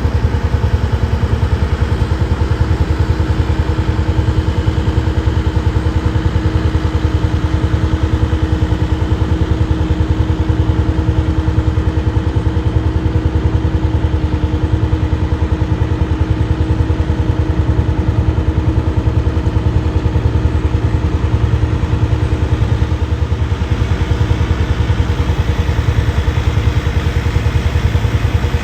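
Kubota M7060 tractor's four-cylinder diesel engine running steadily, with a fast even pulse.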